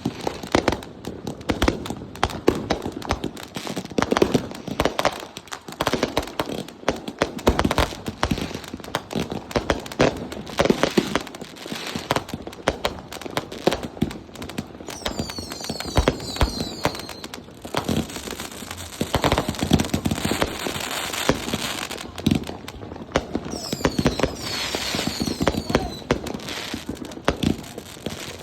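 Consumer fireworks going off: a steady run of irregular bangs and pops with crackle, and two spells of high whistling, about halfway through and again near the end.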